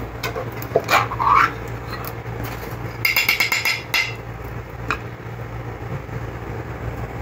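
Ring-pull metal lid of a can of sweet corn being popped and peeled open: short sharp metallic sounds about a second in, then a quick run of rapid clicking and scraping a couple of seconds later.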